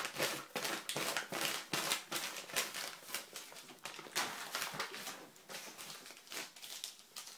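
Packaging being handled as lock picks are unwrapped: irregular rustling and crinkling with small clicks and taps.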